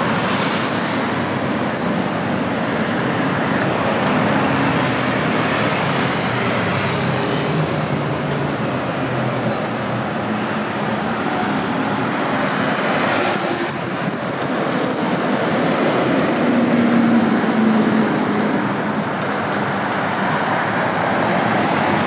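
Steady city street ambience dominated by road traffic noise, with vehicles passing.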